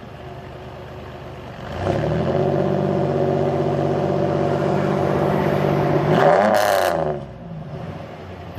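A 2000 Pontiac Firebird's 3.8-litre V6 idling, then revved about two seconds in and held at raised revs. It climbs higher with a brief hiss around six seconds, drops back to idle about a second later, and starts another rev at the very end.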